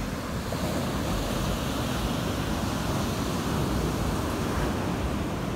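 Ocean shorebreak surf breaking and washing up the sand, a steady rushing noise, with wind rumbling on the microphone.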